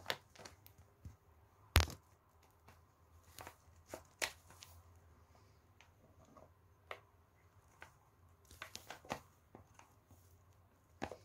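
A drinking glass knocking and tapping against a mixing bowl as flour is tipped out of it: scattered faint clicks, the sharpest about two seconds in, and a quick run of taps about nine seconds in.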